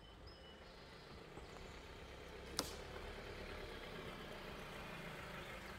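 A Honda Element SUV creeping along a dirt road, its engine and tyres a faint low rumble that grows a little louder as it comes closer, with one sharp click about two and a half seconds in.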